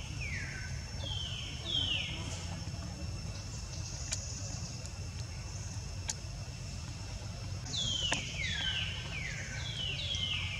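Short, high animal calls, each sliding down in pitch. There are three in the first two seconds, then a quick run of five or six near the end, over a steady low hum.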